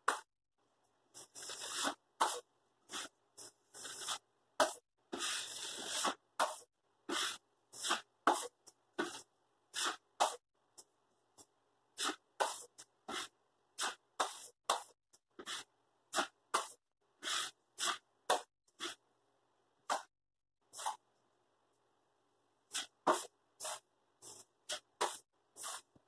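A hand tool worked back and forth on drywall, making short rasping strokes about one or two a second. Two strokes early on are longer, and the strokes pause briefly about halfway through and again late on.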